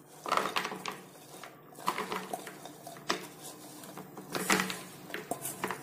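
Sugar-coated shakarpare being tipped out of a steel pot onto a plate: the pot's rim scrapes and knocks against the plate as the pieces slide out, in a few irregular bursts. The loudest come about a third of a second in and again about four and a half seconds in.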